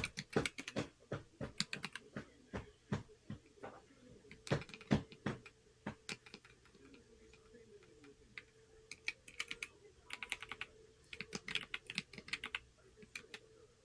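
Typing on a Corne split mechanical keyboard: runs of quick key clicks, with a pause of about three seconds in the middle before the typing resumes.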